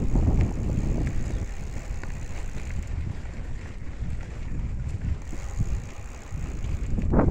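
Wind buffeting the microphone: an uneven low rumble, with a brief louder gust near the end.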